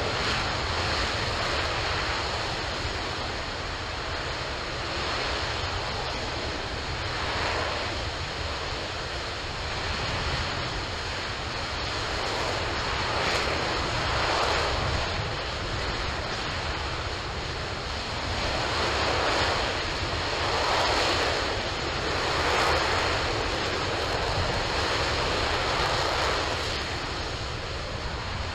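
RS-25 liquid hydrogen/liquid oxygen rocket engine running at full power in a static test fire: a steady, loud roar of rushing noise that swells and eases slowly every second or two.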